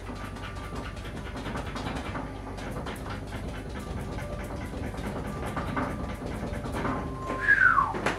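An oil-paint brush tapping and dabbing on a stretched canvas, a quick run of soft taps, then a short squeal falling in pitch about seven and a half seconds in.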